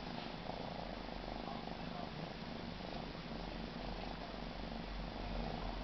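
Siberian kitten purring steadily.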